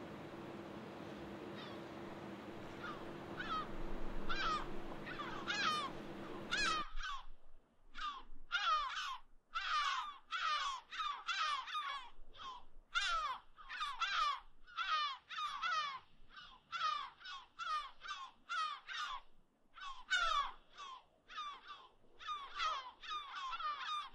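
Birds calling over and over, short harsh calls that slide down in pitch, faint at first and then about two a second. A steady low hum under them cuts off suddenly about seven seconds in.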